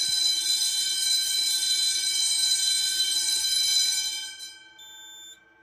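Fire alarm bells of an EST2 system ringing continuously, a dense metallic ring, then stopping about four seconds in and ringing down quickly. A short, fainter steady electronic tone follows near the end.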